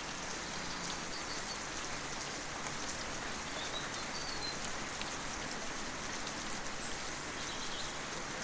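Steady patter of rain, with a few faint, short bird chirps.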